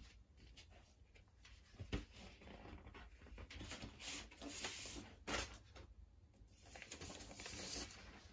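A vinyl LP being worked out of its paper inner sleeve and cardboard jacket: faint, irregular paper rustling and sliding with small clicks, and a sharp knock about two seconds in.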